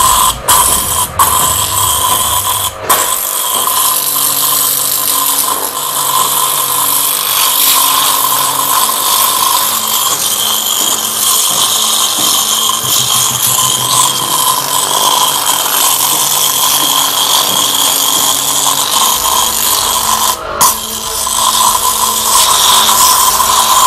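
StarQ W3 electric pressure washer running steadily, its water jet hissing as it blasts a potato and brick. The spray breaks off briefly a few times near the start and once about 20 seconds in.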